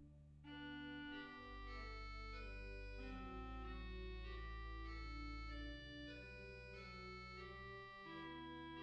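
Organ playing slow, sustained chords over a deep held bass note, starting again after a brief break at the start.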